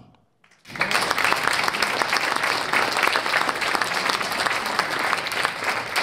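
An audience applauding. The clapping starts just under a second in and carries on steadily.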